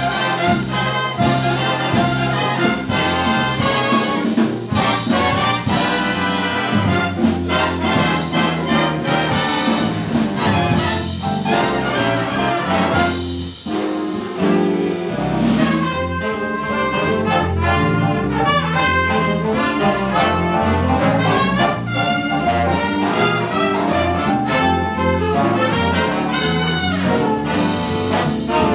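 A jazz big band playing live: brass and saxophone sections with piano, with a brief break in the sound about halfway through.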